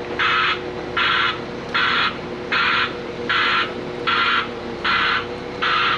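A reversing vehicle's backup alarm beeping steadily, about every 0.8 seconds, eight times. The beeps are harsh and buzzy, a terrible-sounding backup horn, over a steady engine hum.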